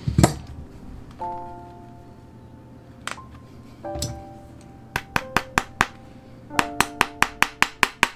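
Quick, light hammer taps driving lasting tacks into a shoe upper on its last, in two rapid runs of about five taps a second in the second half, after a heavier knock at the start and a couple of single taps. Soft background music plays underneath.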